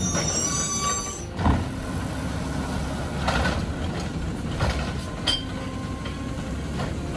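Amrep automated side-loader recycling truck idling while its hydraulic arm grabs, lifts and tips a recycling cart into the hopper. A high squeal dies away at the start, a sharp knock comes about a second and a half in, and a few clatters follow as the cart is emptied.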